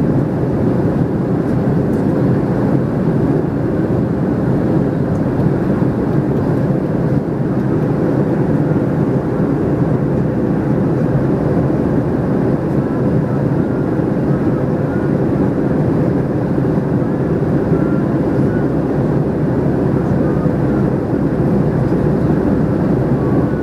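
Steady cabin noise of a Boeing 737-300 in flight, heard from inside the passenger cabin: the drone of its CFM56-3 turbofan engines and the rush of air, with a faint steady hum.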